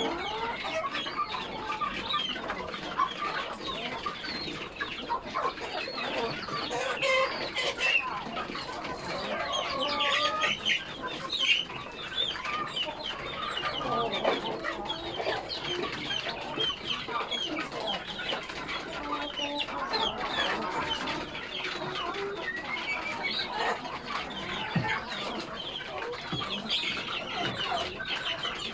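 A flock of chickens clucking and calling over one another, many short overlapping calls with no pause.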